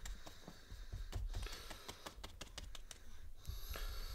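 Light, irregular tapping and clicking of paintbrushes dabbing thick acrylic paint onto small canvas panels and a palette, several taps a second with a lull about three seconds in.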